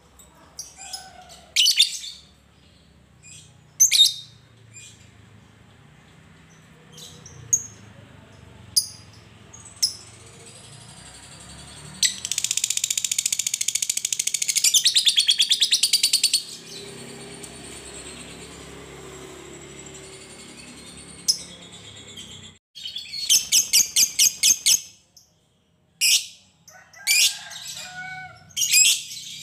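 Fischer's lovebird calling: a few sharp single chirps, then a loud, rapid chattering trill about four seconds long (the 'ngekek' that fighter lovebirds are kept for), then a run of about eight quick shrill notes and more chirps near the end.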